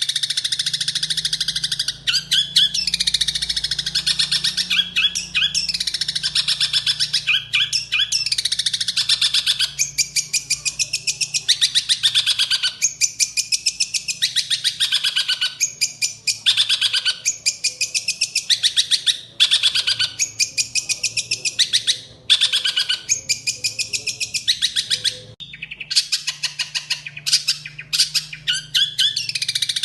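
Songbird singing a loud, rapid, high-pitched song of fast trills and falling sweeps, delivered in phrases of a second or two separated by short breaks.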